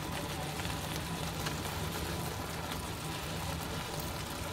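Faint steady sizzling hiss of a pot of pulao rice cooking down over a gas flame, with a few soft ticks.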